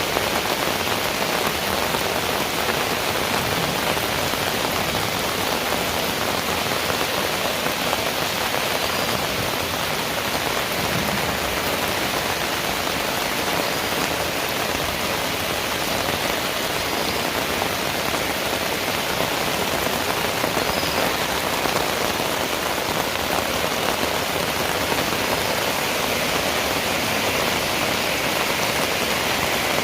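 Heavy rain falling steadily: a constant, even hiss.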